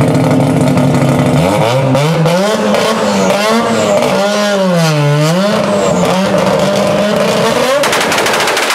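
Mazda FC RX-7 drag car's rotary engine idling at the starting line, then revving up and down in several sweeps and holding high revs. Near the end it breaks into a rapid, even stuttering crackle.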